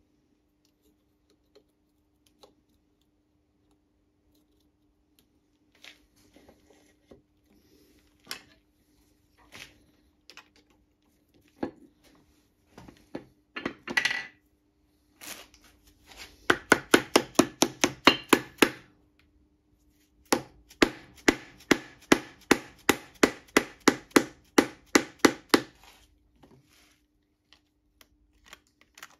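A piston being tapped down into its cylinder bore with the handle end of a hammer, through a homemade sheet-metal piston ring compressor clamped with locking pliers. The taps come in two quick runs, about three or four a second, after a spell of scattered clicks as the metal band and pliers are handled.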